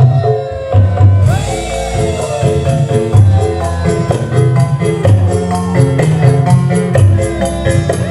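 Live band playing an upbeat song: heavy drums and bass under melodic lines, with a fast, steady high tick that comes in about a second in.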